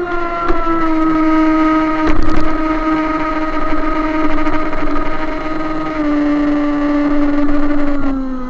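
RC speedboat's scale outboard motor running flat out with a steady high whine, its pitch easing down near the end, over the hiss of spray off the hull. About two seconds in, the hull slaps hard on the water in a loud splash.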